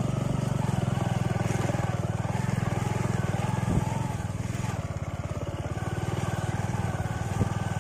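Motorcycle engine running steadily while riding a muddy track, with two sharp knocks, one about four seconds in and one near the end.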